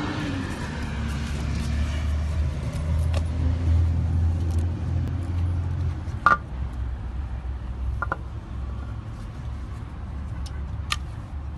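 Steady low rumble of a running vehicle engine, stronger for the first six seconds, then softer. A few sharp clicks cut through it, about six, eight and eleven seconds in.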